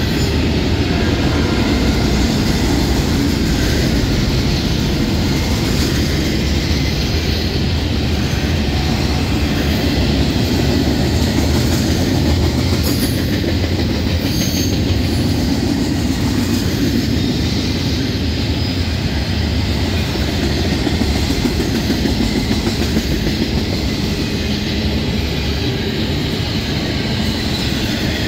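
Double-stack intermodal freight train's container cars rolling past, their steel wheels running on the rails in a steady, loud rumble.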